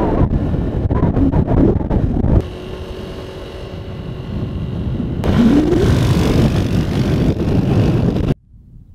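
Moped engine running on the move with heavy wind buffeting the microphone; about five seconds in the engine pitch rises as it speeds up, and the sound drops away suddenly near the end.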